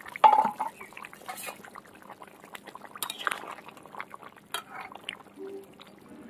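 A metal lid is lifted off a large metal pot with a clank and a short ring just after the start. Then a metal spatula stirs the simmering chicken curry, the liquid sloshing, with scattered clicks and scrapes against the pot.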